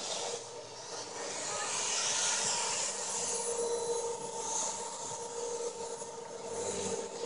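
Compass Warp 360 RC helicopter in flight: a steady whine from its rotor and motor over a rushing hiss, swelling about two seconds in and easing off again.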